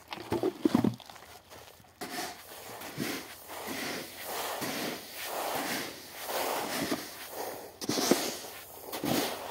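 Hands scooping and turning a heap of wheat seed on a plastic tarp, mixing in a pink seed treatment: repeated grainy swishes and rustles about once a second, loudest in the first second.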